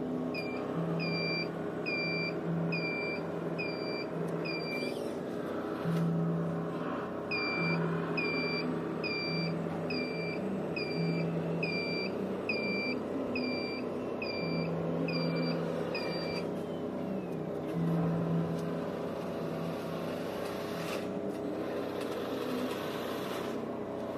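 Reversing-alarm beeper from an RC Iveco Trakker model truck, a steady beep about once a second over a low engine hum. The beeping pauses once briefly and stops about two-thirds of the way in, leaving the hum.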